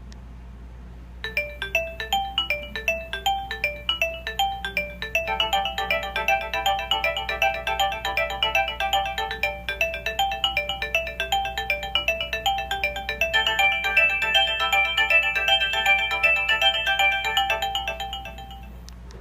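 Nokia 2310 mobile phone playing one of its built-in ringtones: a quick melody of short electronic notes over an accompanying line. It starts about a second in and stops shortly before the end.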